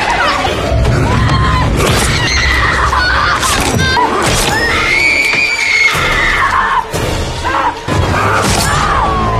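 Horror-film fight soundtrack: a young woman screaming over a tense orchestral score, with repeated sharp crashes and impacts of a struggle.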